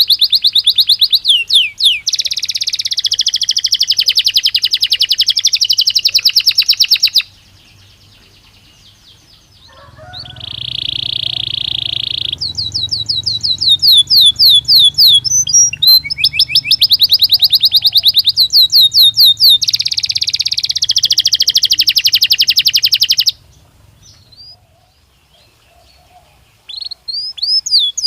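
Belgian canary singing in long phrases of rapid trills and rolls, with quick sweeping notes between them; the song breaks off twice for a few seconds.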